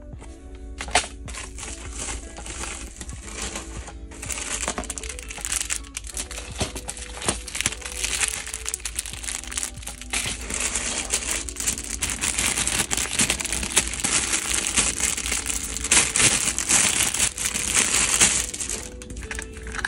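Clear plastic packaging bags crinkling and rustling as they are handled, with scattered sharp clicks, becoming denser and louder from about four seconds in, over background music.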